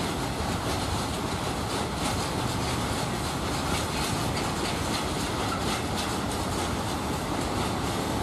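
Freight train wagons rolling past: a steady rumble of wheels on rails with faint repeated clicks.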